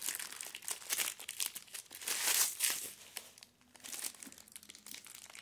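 Clear plastic wrapping crinkling in quick, irregular rustles as hands pull it off a small painted cast-iron cauldron, with a brief lull about three and a half seconds in.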